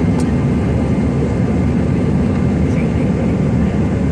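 Steady cabin noise of a Bombardier CRJ-200 airliner on approach: a deep, even roar from its two rear-mounted CF34 turbofans, with thin steady whine tones above it.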